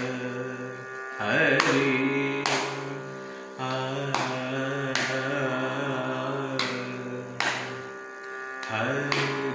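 Carnatic music accompaniment: a steady pitched drone with drum strokes landing about once a second, keeping the beat of rupaka tala.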